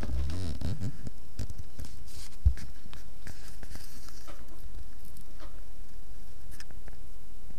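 A kitten licking and grooming its paw at close range: soft small clicks and rustles, with one sharp low thump about two and a half seconds in.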